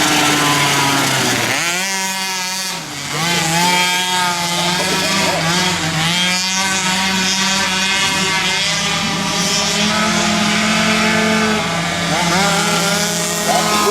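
Several flat-track racing engines running hard on the track, their pitch rising and falling in overlapping sweeps and steps as the riders go through the turns. The sound dips briefly about two and a half seconds in.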